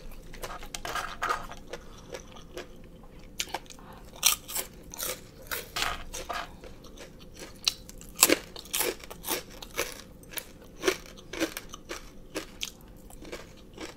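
Close-miked chewing of crunchy food: irregular crisp crunches and bites, clustered in places and spaced out in others.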